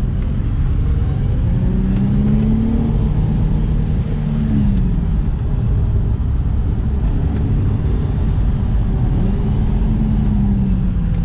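Infiniti G35's 3.5-litre V6 engine revving up and easing off twice while driving, over a steady low road rumble.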